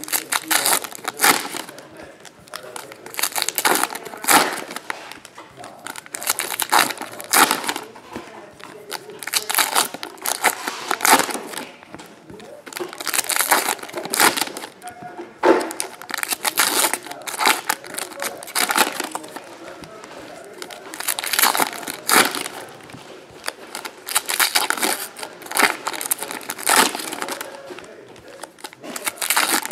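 Foil wrappers of Panini Prizm basketball card packs crinkling and tearing as they are ripped open and handled, in irregular rustling bursts.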